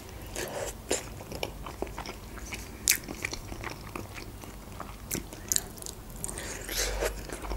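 Close-up sounds of a person biting into and chewing a khinkali dumpling, with wet mouth noises and scattered sharp clicks.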